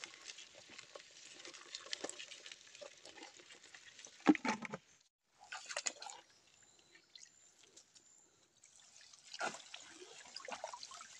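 Water splashing and dripping as small fish are shaken out of a net fish trap into a pail of water, with one loud sharp sound about four seconds in. Then a collapsible mesh umbrella fish trap is lifted out of a shallow stream, with water splashing and pouring off it near the end.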